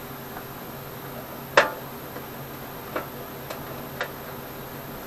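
A few sharp clicks and light knocks as the lawn tractor's dash panel is worked into place by hand. One louder click comes about a second and a half in, then three lighter ones about half a second apart, over a low steady hum.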